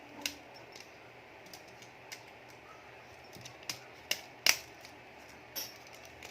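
Scattered small clicks and taps of a disassembled phone's parts being handled and fitted together, the sharpest about four and a half seconds in.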